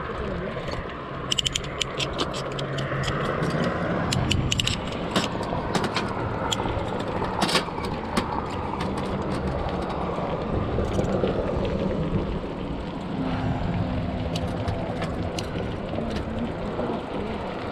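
Mountain bike riding over rough trail: steady tyre and wind noise, with two runs of sharp rattling clicks from the bike over bumps, the first in the first half and the second near the end.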